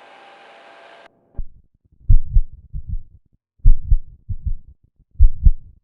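Heart sounds beating in pairs: a stronger beat followed about two-thirds of a second later by a weaker one, then a longer pause, the pair repeating about every one and a half seconds. The coupled rhythm fits bigeminy. A faint steady hum cuts off about a second in, just before the beats start.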